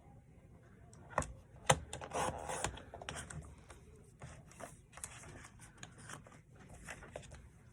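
Craft paper being trimmed and handled: two sharp clicks a little over a second in, the second the loudest, then rubbing and scraping of paper and a few lighter ticks.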